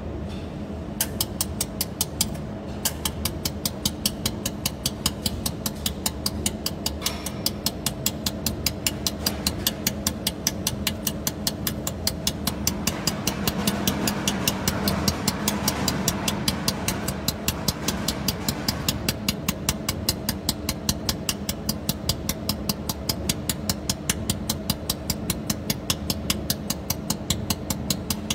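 Pulsed jewelry laser welder firing repeatedly, a sharp tick with each pulse about three to four times a second, starting about a second in. Under it runs the machine's steady hum, with a hiss swelling for a few seconds in the middle.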